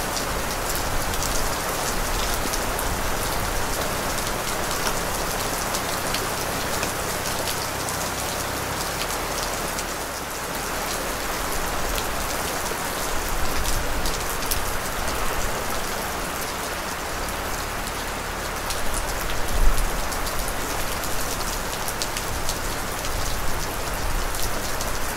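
Steady rain falling and pattering on a surface, a dense crackle of drops. A brief low rumble swells up about three-quarters of the way through.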